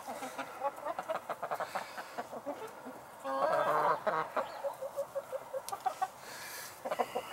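A flock of chickens clucking in quick short notes, with one louder, longer call about three and a half seconds in.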